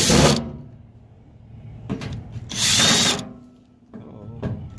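Cordless drill driving screws into a van's sheet-metal door panel in two short bursts, one at the start and another for about a second around two and a half seconds in.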